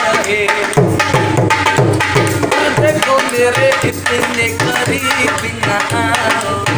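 Dholak played by hand in a quick rhythm, its deep bass-head strokes sliding in pitch under sharper slaps on the treble head.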